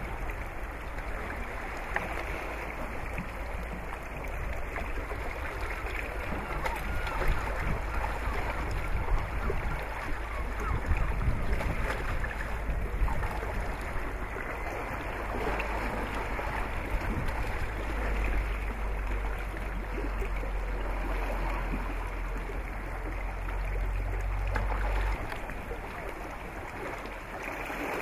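Steady rush and splash of sea water along a sailing boat's hull, with a deep wind rumble on the microphone that cuts off suddenly near the end.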